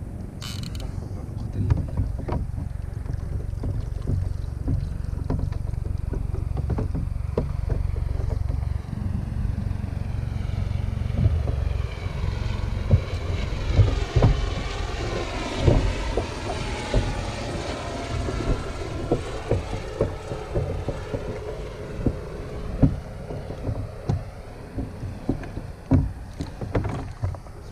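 Wind buffeting the microphone on open water, with scattered knocks from fishing gear against a kayak. About twelve seconds in, a wavering pitched drone rises, holds for several seconds and fades.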